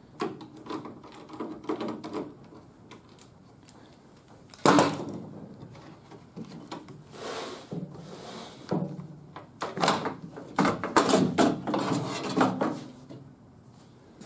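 Handling noises from pulling a rubber window run channel and a pane of glass out of a bare car door frame: rubbing and scraping of rubber and glass against the metal, with a sharp knock about five seconds in and a busier run of rubbing and knocks over the last few seconds.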